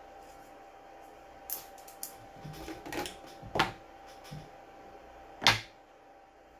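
Hand-handling clicks and taps from a black 3D-printed plastic bearing and a pair of side cutters being picked up and set down: a scattered handful of sharp clicks, the loudest about three and a half and five and a half seconds in, over a faint steady hum.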